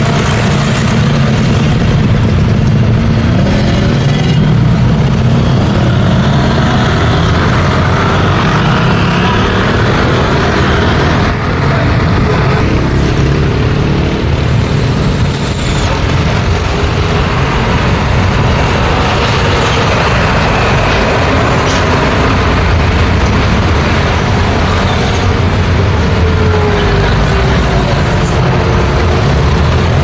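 Steady road traffic: motorcycle and scooter engines and cars passing continuously, a dense low engine noise that never lets up.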